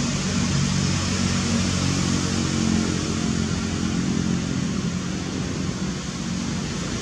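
Steady background noise: a low, wavering hum under an even hiss, with no distinct calls or knocks.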